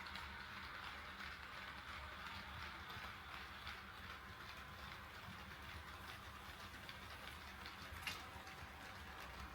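HO scale model train running on the layout track, its wheels ticking faintly and irregularly over the rail joints over a low motor hum, with one sharper click about eight seconds in.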